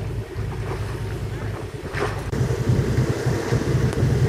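Steady low drone of the brigantine's motor as the ship runs under power, growing louder about two seconds in, with wind rumbling on the microphone.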